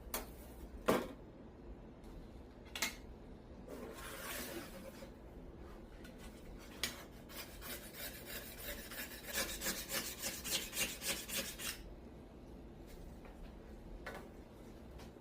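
Hand scraping or rubbing strokes on the steel plate of an antique Spear & Jackson rip saw, ending in a quick back-and-forth run of about four strokes a second. Before the strokes come a few sharp knocks from handling, the loudest about a second in.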